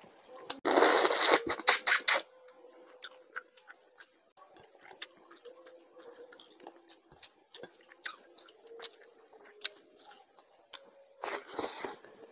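Close-miked eating: a person chewing mouthfuls of rice and fish curry eaten by hand, with wet smacking clicks throughout. There is a loud burst of wet mouth noise about a second in and another near the end.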